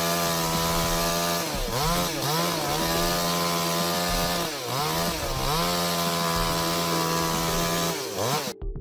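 Chainsaw running at high revs, its pitch dipping and climbing back about three times, then cutting off abruptly near the end.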